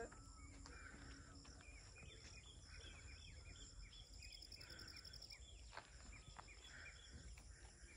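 Near silence: faint outdoor ambience of scattered soft bird chirps over a steady high insect hum.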